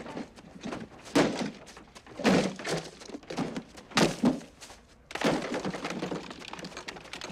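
Irregular thuds and knocks of plastic Christmas lawn decorations, a Santa sleigh and reindeer, being kicked and knocked over into snow.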